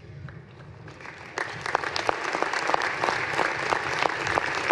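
Audience applauding, the clapping breaking out about a second and a half in and continuing steadily.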